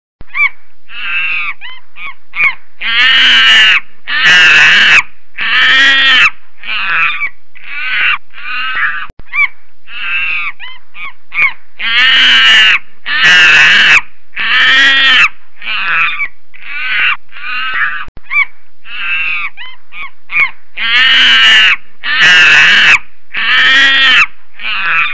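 Monkey screaming: runs of short, high calls that build into long, loud screeches. The same sequence repeats about every nine seconds.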